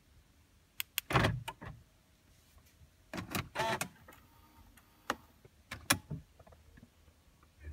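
A string of sharp clicks and a thump about a second in, a short rattling whirr around three seconds in, then a few more clicks: a Mercedes key fob being handled inside the car.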